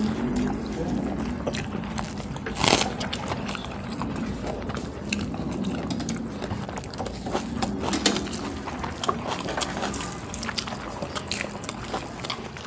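Eating sounds: fingers mixing and squishing rice on metal plates and mouths chewing, a run of scattered small clicks and wet smacks, with a sharper click about two and a half seconds in.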